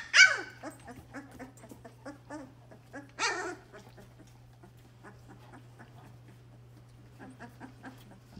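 Labrador Retriever puppies yelping and whimpering as they play. A sharp yelp falling in pitch comes right at the start and another about three seconds in, with softer short whimpers between.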